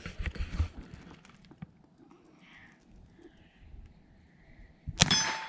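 Faint handling noise, then about five seconds in a single sharp revolver shot, followed by a brief ringing tone that fades quickly, as from the round striking a metal target.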